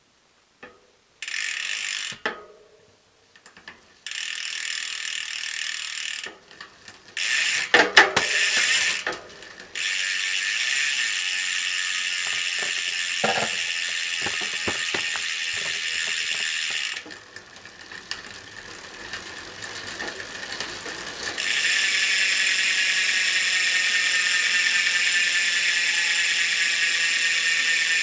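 Hadley SDH XL 150 R40 hub's freehub pawls clicking as the wheel freewheels, so fast the clicks run together into a loud, high buzz. It comes in spins of a few seconds with short gaps between, then runs steadily through the last six seconds.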